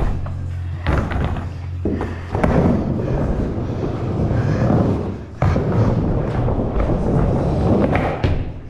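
Skateboard dropping into and riding an indoor bowl: sharp knocks as the board goes in about a second and two seconds in, then the rumble of the wheels rolling over the ramp surface. There is another sharp knock about five seconds in, and the rolling carries on until near the end.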